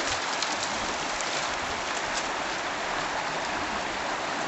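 Steady rushing noise of running water or rain, with a few faint ticks in the first second.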